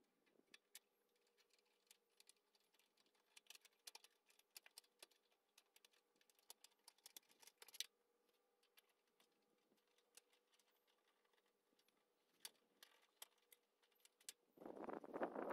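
Faint, irregular light clicks and ticks of hand tools working on the steel bumper reinforcement bracket while its nuts are fitted, over a faint steady hum, otherwise near silence. A louder rush of noise comes in near the end.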